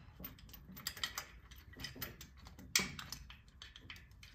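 Light metallic clicks and ticks as a bolt is fitted by hand through the AC compressor and its mounting bracket, with one louder clack a little under three seconds in.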